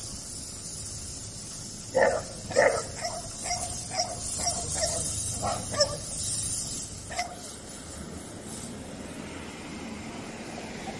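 A dog giving a string of short, high calls, starting about two seconds in and dying out after about five seconds, over a low steady background hum.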